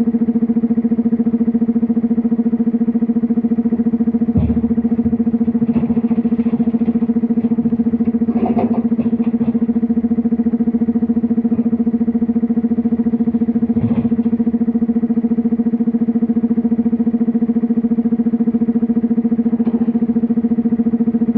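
Heavy diesel excavator engine running at a steady speed, a constant hum. A clatter of rock comes a little over 8 seconds in as a bucketload of stone drops into a dump truck body, with single thumps about four and fourteen seconds in.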